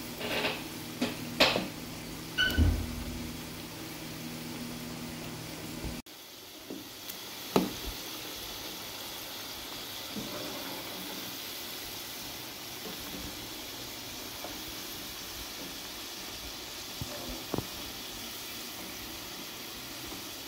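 Battered potato strips deep-frying in hot oil in a karahi: a steady sizzle. A slotted spoon knocks against the pan several times in the first three seconds and once more about a third of the way in. The sound drops out briefly about six seconds in.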